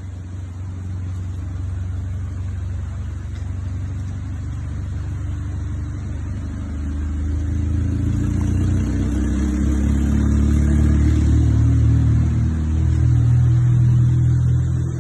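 A motor vehicle's engine running and growing louder over the second half as it comes nearer.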